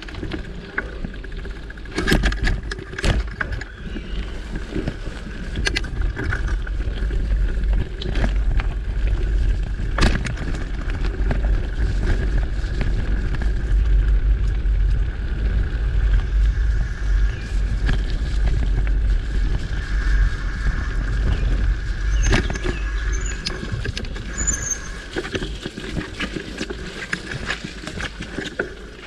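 Mountain bike riding over a dirt singletrack: a constant heavy rumble of wind buffeting the microphone and tyres rolling on dirt, broken by sharp rattles and knocks from the bike jolting over bumps and roots.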